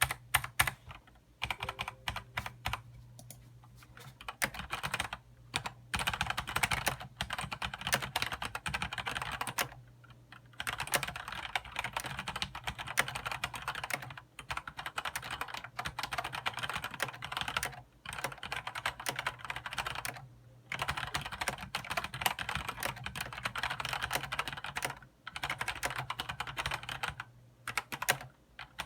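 Fast typing on an ABKO Hacker K650 mechanical keyboard, some of its keys swapped to unlubricated Gateron Yellow linear switches. The keystrokes come in rapid runs of a few seconds with short pauses between them.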